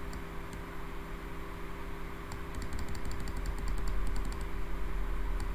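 Computer keyboard keys clicking in a quick run of keystrokes from about two to four and a half seconds in, with a couple of single clicks earlier, over a steady low electrical hum.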